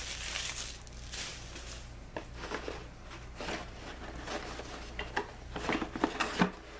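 A cardboard model-kit box being handled and opened by hand: irregular light scrapes, rustles and small taps, busiest in the second half, over a faint steady low hum.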